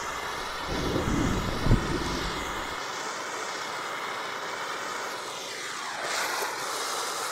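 Handheld gas torch flame hissing steadily as it is swept over wood. A low rumble with a single knock comes between about one and three seconds in.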